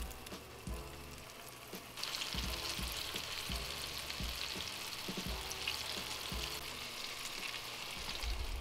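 Lightly battered pike fillets sizzling and crackling in hot oil in a frying pan, the sizzle growing louder about two seconds in and then holding steady.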